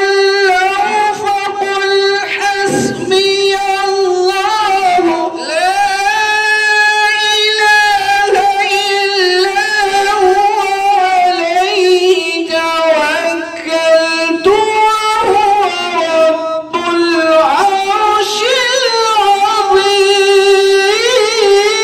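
A male qari's voice in melodic Quran recitation (tilawat), sung through a microphone in long drawn-out phrases with held notes and winding ornaments. There are brief pauses for breath about five seconds in and again near seventeen seconds.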